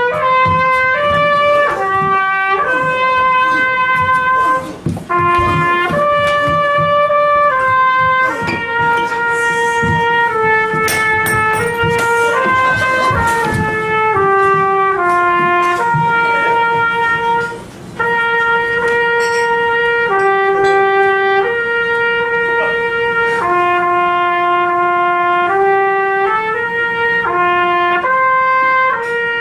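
Solo trumpet playing a slow melody of long held notes, with two short breaks for breath.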